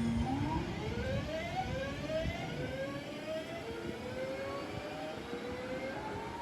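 Class 323 electric multiple unit's traction inverters whining as the train pulls away: a stacked whine that climbs in pitch, drops back and climbs again several times as it accelerates, over steady running noise.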